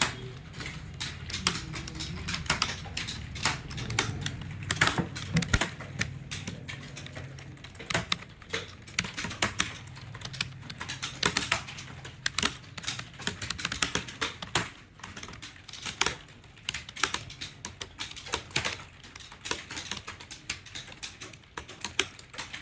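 Fast, continuous typing on a computer keyboard: rapid, irregular key clicks several times a second, as in a timed typing-speed test.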